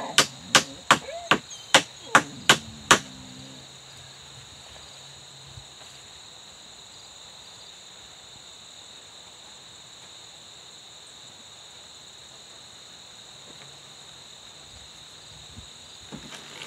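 A nail being hammered into a birch log: about nine quick, sharp blows at roughly three a second, stopping about three seconds in. After that, only a steady high insect drone.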